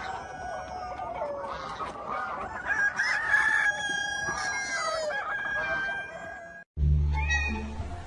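Several birds calling over one another in high, drawn-out calls, some held steady for seconds. The calls cut off abruptly near the end, and a low hum takes over.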